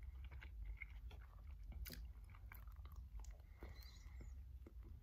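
Faint, close-up chewing of a buffalo chicken slider on a soft Hawaiian roll: a scatter of small mouth clicks, with a sharper one about two seconds in, as another bite goes in near the end. A low, steady hum lies underneath.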